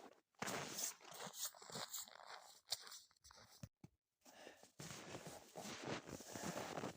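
Footsteps in snow, an irregular crunching and rustling that drops out briefly about four seconds in.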